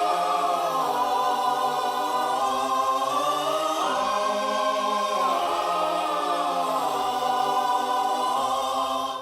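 Choral music: sustained voices singing together in chords that shift slowly, cutting off near the end.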